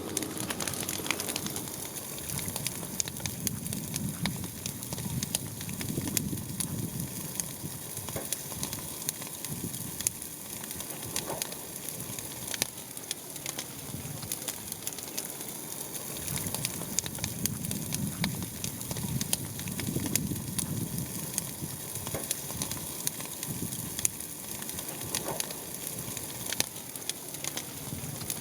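Steady dense crackling made of many small clicks, with soft low swells rising and falling a few times.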